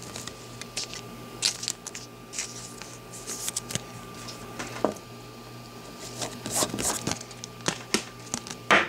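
Trading cards and a clear plastic card holder handled on a table: a scatter of light taps, slides and rustles, with a louder clatter near the end, over a faint steady hum.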